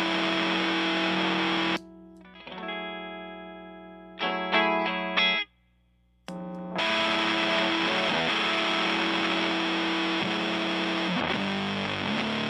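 Electric guitar (American Stratocaster) played through a Power2 fuzz pedal into a Fender Blues Junior amp. A held fuzz-distorted chord cuts off sharply about two seconds in. A few picked notes follow, then a brief silence past the halfway mark, then a long sustained fuzzed chord.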